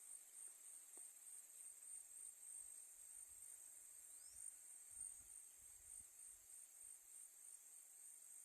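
Faint, steady, high-pitched chirring of insects with a slight regular pulse, and a few faint low rumbles around the middle.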